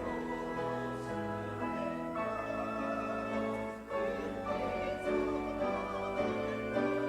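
Congregation singing a slow hymn together with instrumental accompaniment, held chords moving every half second or so.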